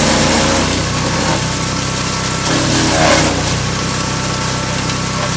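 Petrol wood chipper's engine running steadily, with brief louder rushing surges near the start and about three seconds in.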